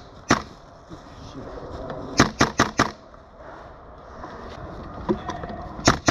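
Airsoft guns firing: a single sharp shot, then a quick string of four shots about two seconds in, and another single shot near the end.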